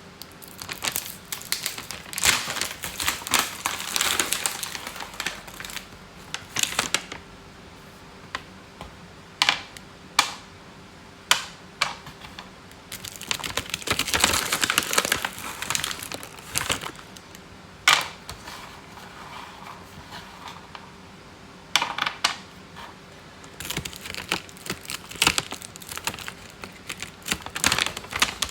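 A package of Temptations cat treats being handled: irregular bursts of crinkling and sharp clicking, with short pauses between.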